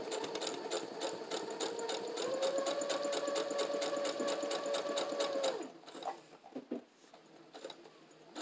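Brother electric sewing machine stitching fabric: motor whine with a fast, even needle clatter. It speeds up about two seconds in, then stops a little past halfway, leaving only faint handling sounds.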